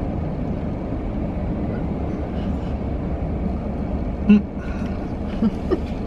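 Steady low rumble of a parked car's idling engine, heard inside the cabin, with a short knock about four seconds in and a couple of faint taps after it.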